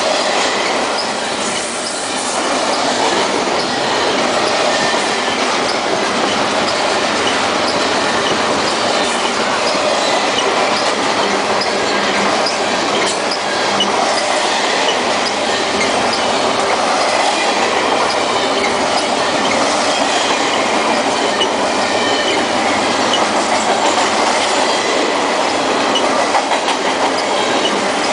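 Double-stack intermodal freight train's well cars rolling past: a loud, steady noise of steel wheels on rail, with clacking over the rail joints and thin, high wheel squeal now and then.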